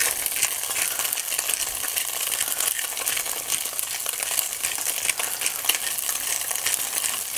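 Seasoned swordfish steak searing in a hot steel pan, a steady, dense crackling sizzle.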